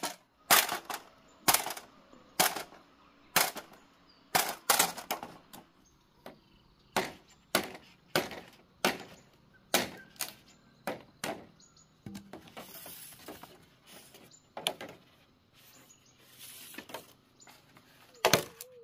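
A billhook knife chopping and splitting green bamboo poles: sharp, irregular blade strikes about once a second, with a brief stretch of scraping about two-thirds of the way in.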